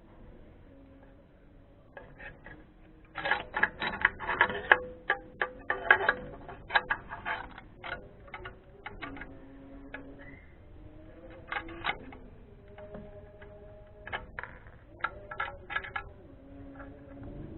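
Irregular clicks and light metallic knocks, typical of hand tools and engine parts being handled, coming in quick clusters about three seconds in and again twice later.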